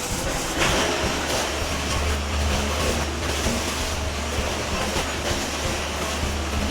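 Heavy machinery running: a steady low rumble with noise over it, getting louder a little under a second in.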